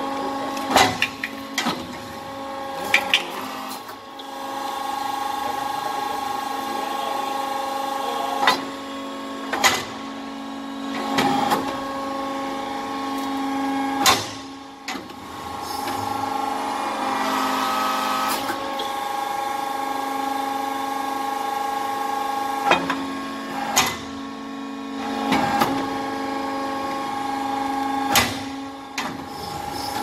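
RUF hydraulic briquetting press running, its hydraulic pump giving a steady multi-tone hum, with about a dozen sharp clunks at irregular intervals as the press cycles and pushes out metal-chip briquettes.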